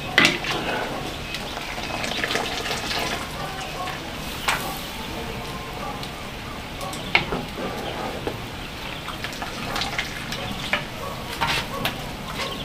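Hot, freshly boiled spinach draining in a bamboo basket: a steady sizzling, dripping hiss of hot water and steam, with scattered sharp ticks and crackles.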